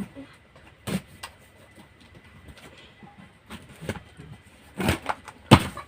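Irregular knocks, taps and rustles of a cardboard box and its packaging being handled and opened, with the loudest knocks a little before the end.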